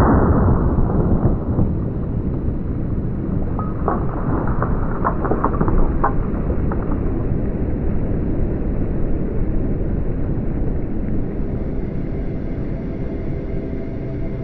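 A deep, steady rumble, with a scattering of clicks and ticks between about four and seven seconds in.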